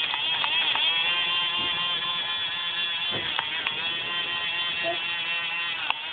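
Small electric motor of a battery-powered toy bubble blower running with a steady whine. Its pitch sags briefly a few times.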